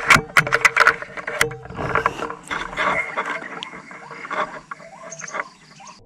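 White-breasted waterhen calls: fast ratchety croaking notes, densest in the first second and a half, then in spaced groups that fade toward the end.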